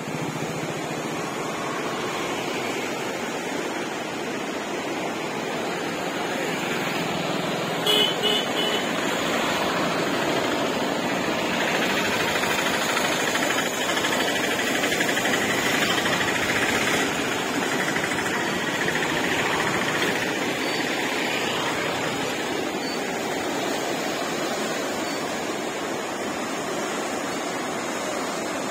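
Steady rushing of a river in full flood, its fast muddy current churning and swirling. A brief beeping cuts in about eight seconds in.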